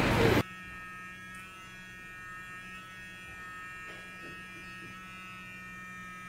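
Handheld electric facial massager held against the cheek, giving a steady electric buzz. Street noise cuts off abruptly about half a second in, leaving the buzz alone.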